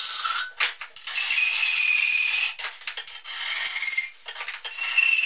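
Hacksaw cutting through a steel clamp held in a vise: about four slow back-and-forth strokes, each a harsh scrape with a high metallic squeal in it.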